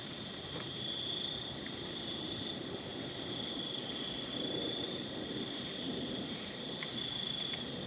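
Insects trilling steadily in the surrounding woods, a constant high-pitched chirr that swells and fades slightly, over faint outdoor background noise.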